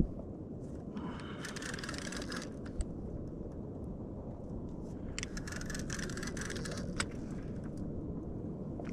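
Steady low rumble of wind and water around a small boat, with two spells of rattling and scraping from fishing gear being handled, about a second in and again after five seconds, with a few sharp clicks.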